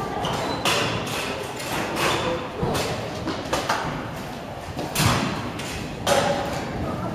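Kick scooter wheels rolling and clattering on skatepark ramps, with repeated knocks and thumps echoing around a large hall; one louder thump about five seconds in.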